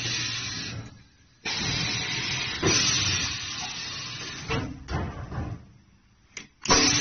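Tyre compacting machine working, with loud hissing in several bursts that each start suddenly and fade away, broken by short gaps about a second in and near the end.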